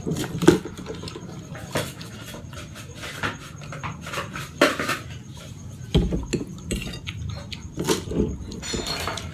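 Close eating sounds: chewing and swallowing mouthfuls of fettuccine carbonara, gulps of iced cola from a glass, and a metal fork clicking and scraping on the plate as pasta is twirled near the end.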